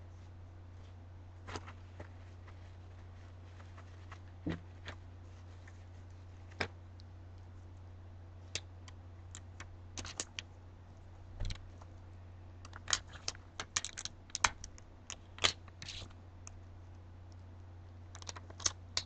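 Scattered clicks and taps from small craft items being handled on a table, with a quick run of louder clicks about two-thirds of the way in, over a steady low hum.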